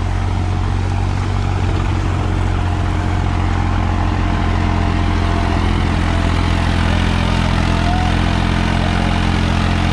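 Tractor diesel engine running at a steady, unchanging speed, loud and close.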